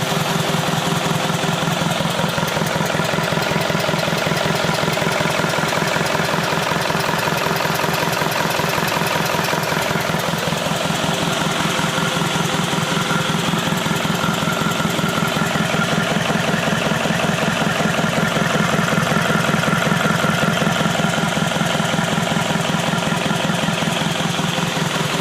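Freshly overhauled Mitsubishi 4D34 four-cylinder diesel engine idling steadily and evenly while being run in after its rebuild.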